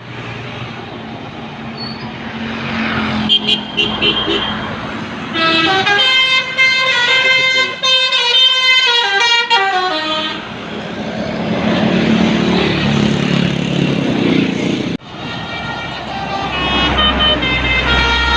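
Bus 'telolet' multi-tone musical horn (basuri type) playing a stepping melody for about five seconds over a passing bus's engine and road noise. After a sudden cut, another horn tune begins near the end.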